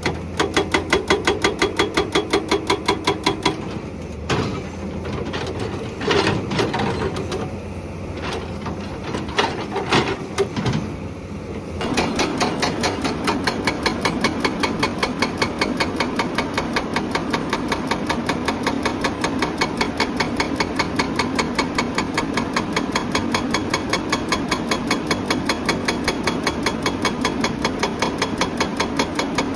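Hydraulic breaker on a Hyundai excavator hammering rock in rapid, even blows, about five a second, over the excavator's engine. It hammers in a short run at the start, knocks irregularly for several seconds, then hammers steadily from a little before halfway on.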